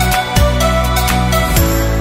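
Background music: sustained chords over a deep bass, with a steady beat.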